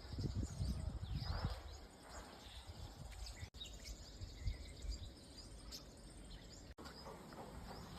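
Outdoor natural ambience: birds chirp here and there over an uneven low rumble. The sound drops out for an instant twice.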